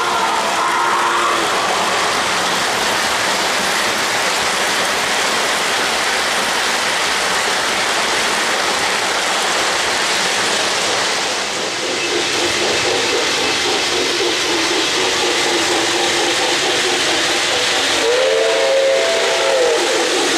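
O-gauge three-rail model trains running on the layout's track: a steady rushing rumble of wheels and motors. A locomotive's onboard sound system blows its whistle briefly at the start, faintly in the middle, and in several short blasts near the end.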